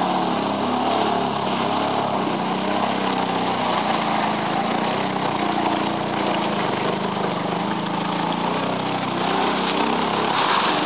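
Arctic Cat Prowler UTV engine running under load as it pushes through deep mud and water, its pitch rising and falling with the throttle.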